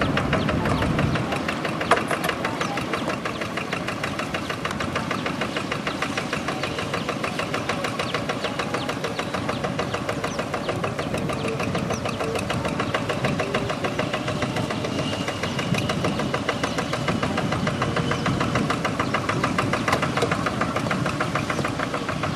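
Hand tractor's single-cylinder diesel engine running steadily under load while ploughing a wet rice paddy, a rapid, even putter. There is a sharp knock about two seconds in.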